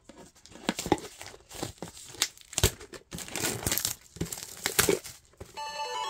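Foil booster pack wrapper crinkling and tearing in irregular bursts as it is opened by hand; music comes in near the end.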